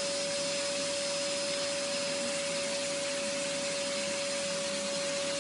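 Vacuum cleaner running steadily with its hose nozzle held to a cat's fur: an even rushing hiss with a steady whine.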